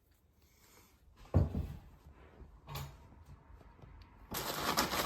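Kitchen handling sounds: a loud thump about a second and a half in and a softer knock near three seconds, then continuous crinkling of wrapping from about four seconds in.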